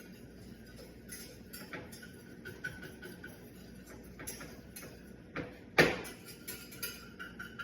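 A cooking utensil clicking and scraping irregularly against a pan while food is stirred, with one sharp knock just before 6 s.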